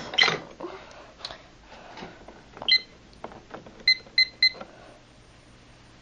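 Short high electronic beeps from a Silent Knight 5230 fire alarm annunciator's keypad as its buttons are pressed to reset the panel: one beep a little before 3 seconds in, then three quick beeps around 4 seconds, with a few faint taps before them.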